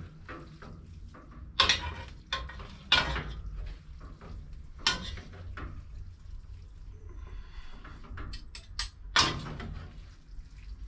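Metal utensil clinking and knocking against an aluminium pot as pasta is stirred: a handful of sharp separate knocks, with a quick run of light taps near the end, over a low steady hum.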